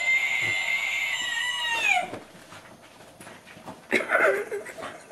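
Battery-powered Halloween toy screeching: a steady, high-pitched electronic shriek that slides down in pitch and cuts out about two seconds in. A short wavering cry follows about four seconds in.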